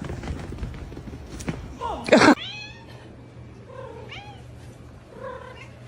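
A cat meowing: one loud call about two seconds in, then several quieter, shorter meows.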